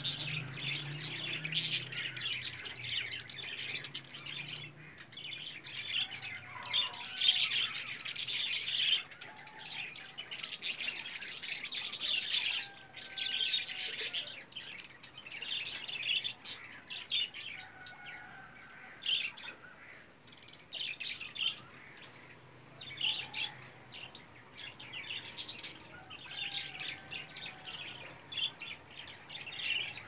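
Many small birds chirping and squawking in busy, overlapping bursts that come and go, with a few short whistled notes in between.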